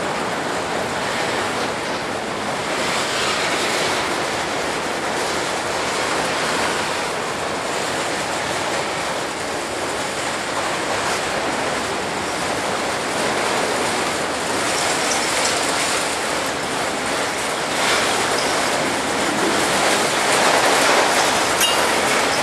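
CSX freight train of enclosed autorack cars rolling past: a steady rumble and clatter of steel wheels on the rails.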